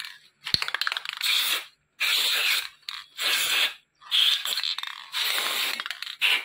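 Aerosol throttle body cleaner sprayed through its straw nozzle in a quick series of short hissing bursts, about eight, flushing black carbon deposits out of a motorcycle throttle body. A sharp click about half a second in.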